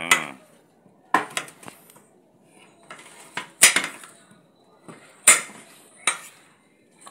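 Kitchen knife slicing carrots and knocking against a cutting board: a handful of sharp, irregularly spaced knocks.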